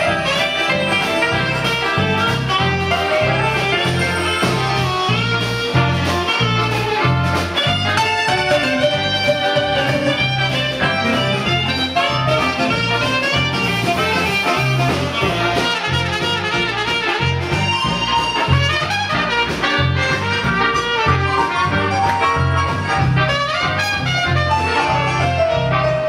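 Live band playing a swing-style jazz number, with trumpet and saxophone over electric guitar, drums and a bass line that moves from note to note.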